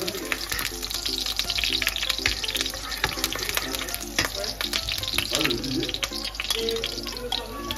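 Chopped garlic sizzling and crackling in hot oil in a non-stick wok, stirred with a spatula.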